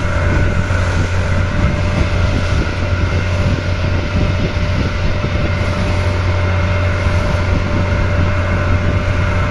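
Motorboat engine running steadily under way, a low hum with a steady whine above it, over water rushing past the hull and wind on the microphone.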